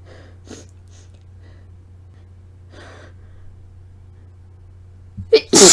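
A woman's faint breaths and sniffs as an induced sneeze builds, then about five seconds in a sudden loud, wet sneeze with a voiced cry.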